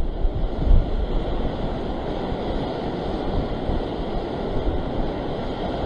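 Surf breaking and washing over low coastal rocks, a steady rushing wash, with wind buffeting the microphone in low thumps during the first second.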